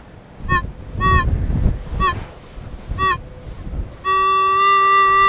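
Metal detector target tones: a few short pitched beeps as the coil is swept over a signal, then from about four seconds in a long steady tone held to the end.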